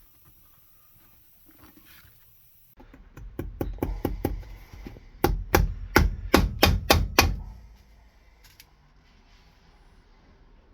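Cobbler's hammer striking a Red Wing Iron Ranger boot during resoling: a run of light, quick taps, then about eight loud, evenly spaced blows at three to four a second.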